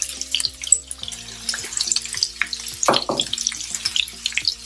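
Freshly added sliced onions sizzling and crackling in hot oil with mustard seeds in a frying pan, with a louder burst of crackling about three seconds in.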